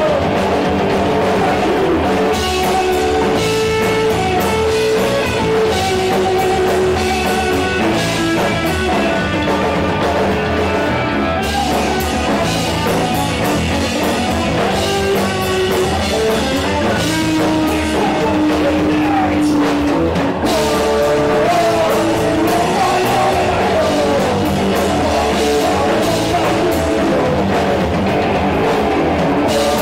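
Rock band playing live: guitar and drum kit, with a singing voice over them.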